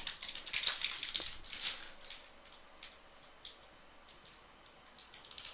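Crinkling of an opened trading-card pack wrapper as cards are slid out and handled. It is strongest in the first two seconds, then fades to a few faint ticks.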